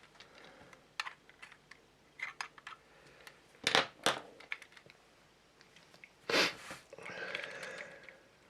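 Plastic scale-model parts being handled and pressed together on a workbench: scattered small clicks and taps, with a few louder handling noises in the middle.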